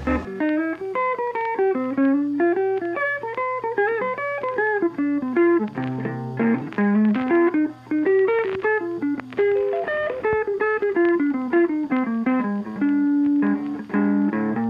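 Background music: a guitar playing a quick, continuous melody of plucked notes.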